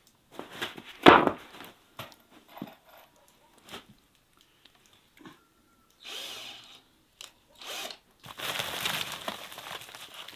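Cordless drill driving screws into wooden boards in several short runs, the longest near the end, with a loud knock of wood on wood about a second in and scattered clicks between.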